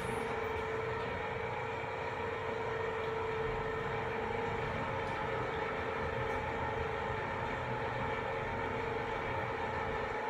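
LG high-speed elevator car travelling upward, heard from inside the car: a steady rushing hum with a constant mid-pitched whine running through it.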